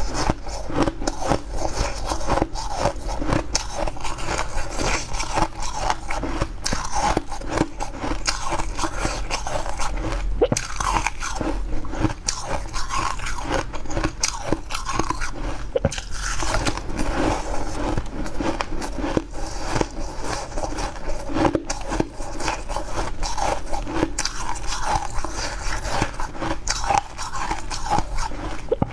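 Close-miked biting and chewing of frosty, snow-like ice: a dense, continuous run of crisp crunches and crackles as the ice is bitten off and ground between the teeth.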